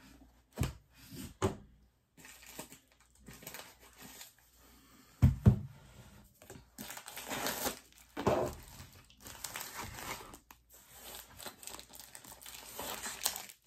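A mailed parcel being opened by hand: packaging crinkling and tearing in irregular bursts, with a single thump about five seconds in.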